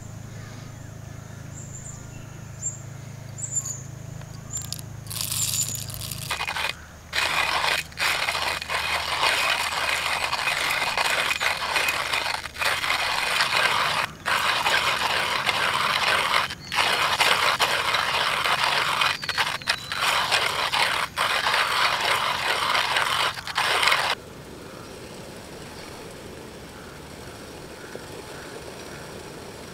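Hand-cranked coffee grinder crushing beans: a loud, gritty scraping crunch that starts about six seconds in and stops about six seconds before the end, broken by several brief pauses in the cranking.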